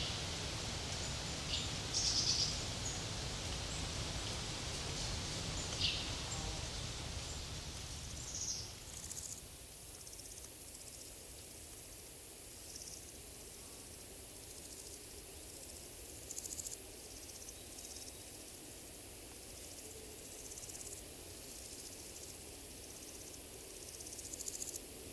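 Forest ambience: crickets chirring in a steady high-pitched band and birds giving scattered short chirps. A gentle breeze is heard for the first eight seconds or so, then dies away.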